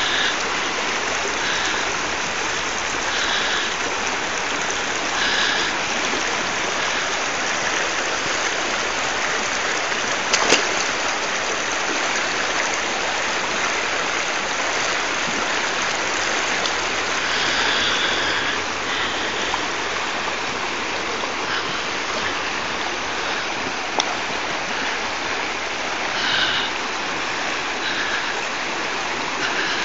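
Shallow, fast-flowing river water rushing steadily, with a sharp click about ten seconds in and another near the end.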